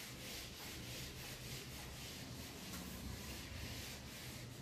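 Whiteboard eraser wiping across a whiteboard in quick, regular back-and-forth strokes, a soft repeated rubbing hiss.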